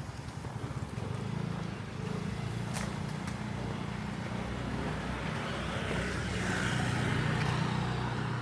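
Street traffic: a motor vehicle's engine running steadily close by, with a swell of passing-vehicle noise about six to seven seconds in.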